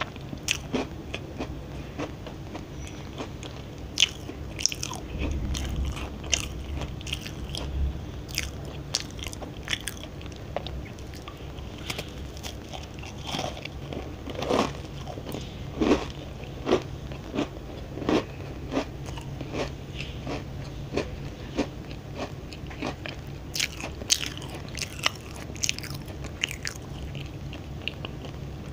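Close-miked biting and chewing of a crunchy chia-seed oat crunch cookie: a steady run of sharp, crisp crunches, about one or two a second.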